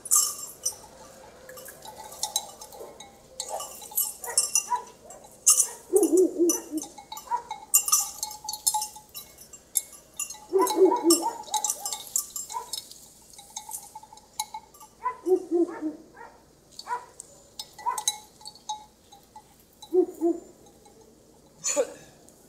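Sheep bleating about four times, short calls a few seconds apart, amid scattered light metallic clinking.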